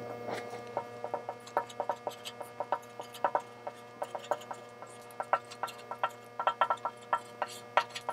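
Marker writing on a glass lightboard: a quick, irregular run of short ticks as the tip strikes and drags across the glass with each stroke, over a faint steady hum.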